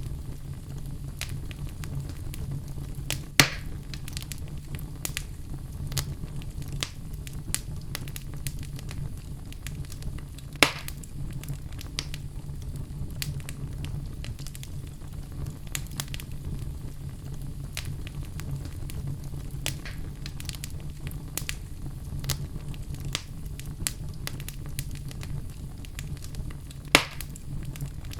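Wood fire burning in a fireplace: a steady low rumble of flames with frequent small crackles and three louder sharp pops.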